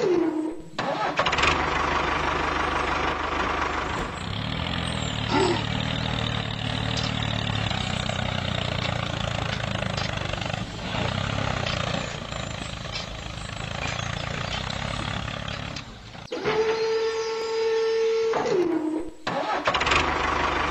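Tractor-like engine running steadily. Near the end a steady high tone comes in and slides down in pitch, the same pattern heard just before.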